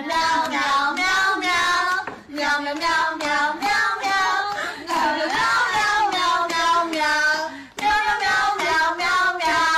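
A high voice singing a melody in long phrases, with short breaks about two seconds in and near the end.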